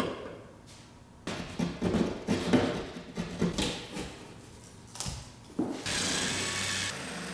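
Clicks and knocks from wires and a wall switch being handled in an electrical box, then a DeWalt cordless drill-driver starts about six seconds in and runs steadily, easing off slightly near the end.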